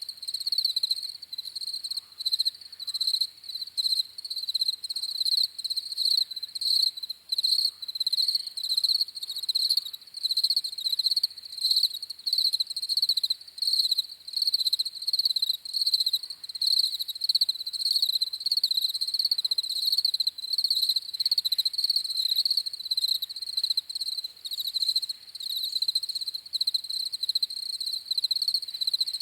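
Crickets chirping: a high-pitched pulsing trill that repeats in regular bursts, unbroken throughout.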